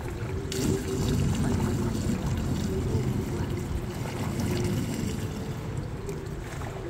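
Swimming-pool water sloshing and splashing as a person wades and sweeps their arms through it, a steady, noisy wash that swells about half a second in.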